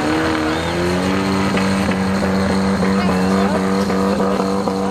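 Off-road vehicle engine revving up over the first second, then held at high revs at a steady pitch.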